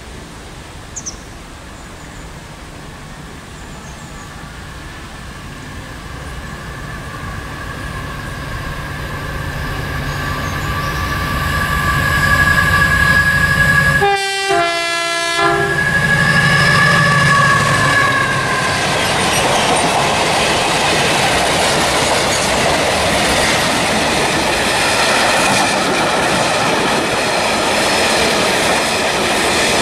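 Colas Rail Class 70 diesel locomotive approaching and passing with a loaded spoil train, its engine growing steadily louder. It gives a short two-note horn blast about 14 seconds in. From about 19 seconds the wagons roll past, wheels clattering over the rail joints.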